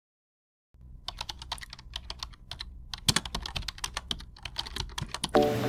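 Typing on a computer keyboard: a fast, irregular run of key clicks starting about a second in, with music coming in just before the end.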